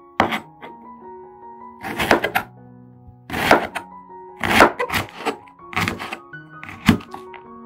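Kitchen knife chopping an onion on a tabletop: sharp chops roughly a second apart, some in quick clusters, over background music.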